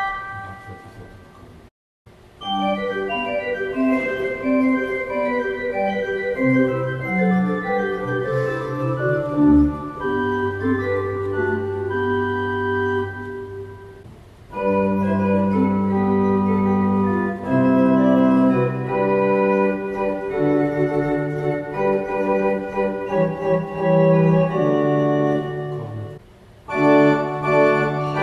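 Rieger pipe organ playing flute stops on the second manual: a note on the Bachflet 2' dies away, and about two seconds in a passage begins on Flet rurkowy 8', Flauto traverso 4' and Tercja 1 3/5'. After a short break near the end the passage resumes with a Kornet of three to four ranks in place of the Tercja.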